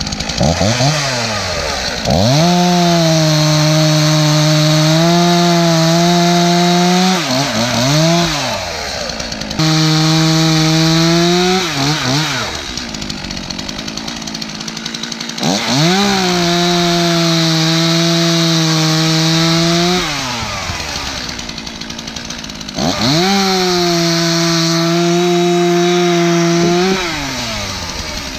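Stihl MS 231 two-stroke chainsaw bucking logs. It revs up to full throttle and holds steady under load through a cut, then drops back to idle, four times over.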